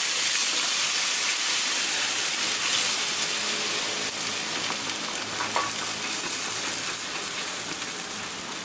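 Sauce poured into a hot frying pan over a cabbage-and-egg omelette, hitting the pan and sizzling loudly at first, then slowly dying down to a gentler simmering sizzle.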